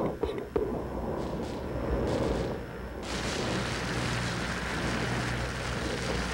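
A low rumble with a few knocks, then about three seconds in a sudden, loud, steady rushing hiss of spraying water.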